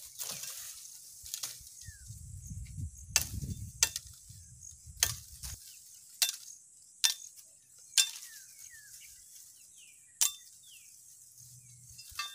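A bolo knife chopping and trimming a bamboo stick: about nine sharp knocks of the blade on the bamboo, spaced irregularly about a second apart.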